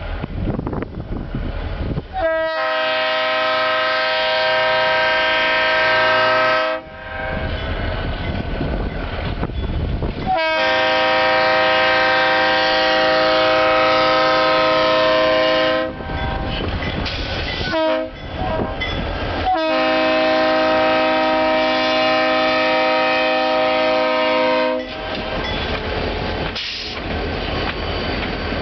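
Air horn of an EMD GP16 locomotive leading a grain train, sounding the grade-crossing signal: two long blasts, a short one, then a long one, each a chord of several notes. Between the blasts is the low rumble of the passing train.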